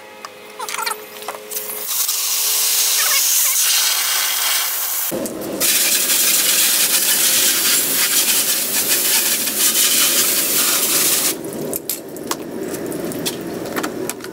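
Liquid soap poured into a plastic bucket, then water from a garden hose hissing and splashing as it is sprayed over a motorcycle. The spray stops about eleven seconds in, leaving scattered drips and splashes.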